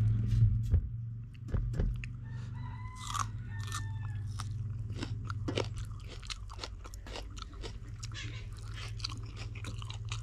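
Close-miked chewing and crunching while eating fish curry and rice by hand, with many short clicks from the mouth. A brief bird call sounds in the background about two to three seconds in, over a steady low hum.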